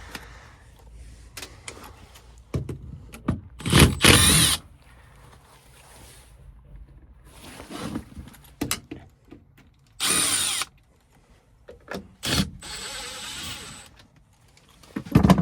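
Cordless drill/driver with a Phillips bit running in three short bursts, working screws on the air handler, with small clicks and handling knocks in between.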